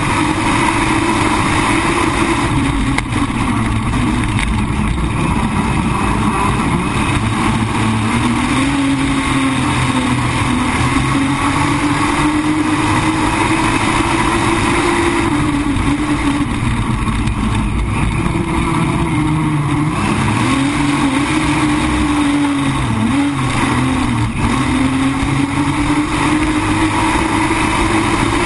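V-drive race boat's engine running hard, its pitch rising and falling as the throttle is eased and reopened, with several quick dips and recoveries about two-thirds of the way through.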